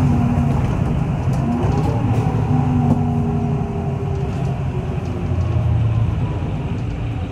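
City bus under way, heard from inside: steady engine drone and road noise, with a faint whine that drifts slightly in pitch.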